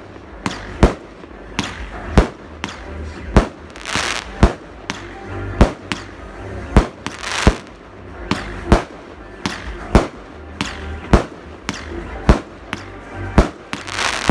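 Aerial fireworks shells bursting in a rapid series of sharp bangs, roughly one every half second to second, with spells of hiss and crackle about four seconds in, around seven seconds in, and at the end.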